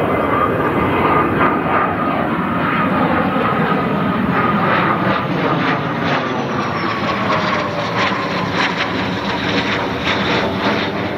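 Learjet business jet's twin turbofan engines at climb power, passing overhead: a loud, steady jet rush with a thin whine that slowly falls in pitch as the aircraft goes by.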